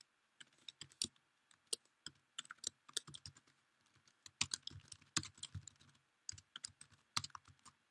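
Quiet, irregular keystrokes on a computer keyboard as code is typed into an editor.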